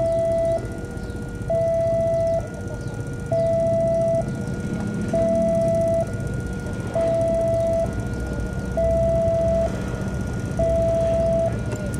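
Railway level-crossing warning alarm sounding, an electronic two-tone signal alternating evenly between a higher and a lower tone, each held a little under a second: the barriers are down and a train is approaching.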